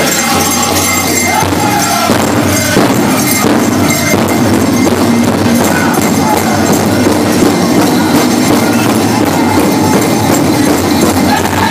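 Powwow drum group: a large drum struck in a steady beat with group singing, mixed with the jingling of dancers' bells.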